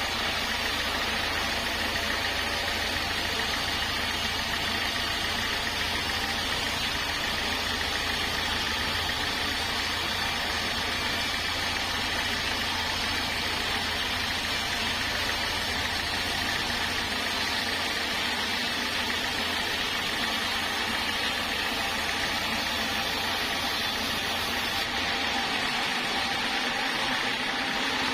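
Sawmill machinery running steadily, a continuous mechanical drone with a hiss. The deep hum drops out near the end.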